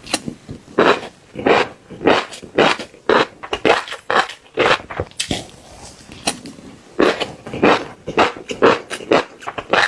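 Close-miked chewing of crunchy fish roe, crackling and popping between the teeth in repeated crunches about twice a second, with a short pause about halfway through.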